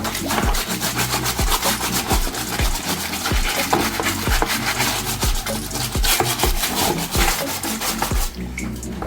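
Continuous rapid rubbing and scrubbing strokes on washing machine parts during a disassembly cleaning, over background music with a steady beat about twice a second.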